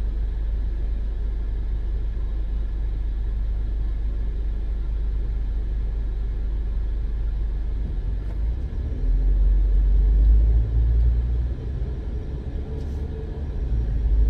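Car driving along, heard from inside the cabin: a steady low road and engine rumble that swells louder for about two seconds around nine seconds in.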